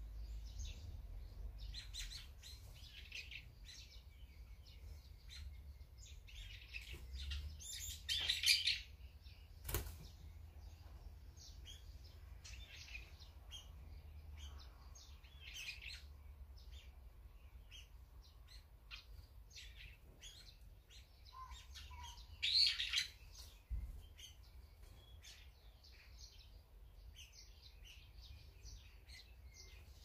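Small birds chirping in short, frequent calls, with two louder rushes of wing flapping, about 8 and 22 seconds in. There is a single sharp click near 10 seconds.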